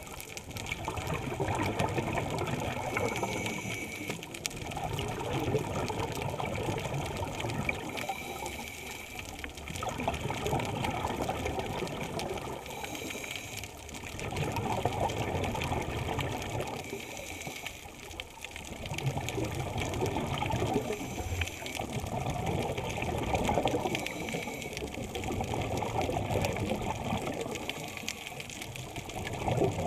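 Scuba diver breathing through a regulator, heard underwater: stretches of bubbling and rushing air a few seconds long, broken by short quieter dips, in a steady breathing cycle about every five seconds.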